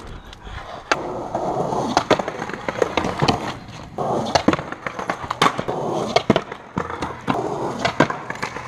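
Skateboard wheels rolling on concrete in a few separate runs, broken by repeated sharp clacks of the board being popped and landing, during attempts at a trick on a concrete ledge.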